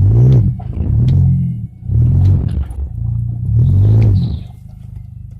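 Vauxhall Astra engine and worn-out gearbox under way, the drone swelling and fading about four times, each swell rising then falling in pitch. The noise comes from a badly failing gearbox.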